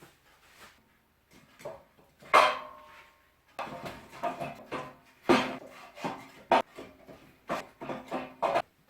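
Thick split pine logs being loaded into the firebox of a steel gas-cylinder wood stove, knocking against each other and the stove: one sharp knock with a short metallic ring about two seconds in, then a run of irregular wooden clunks and knocks.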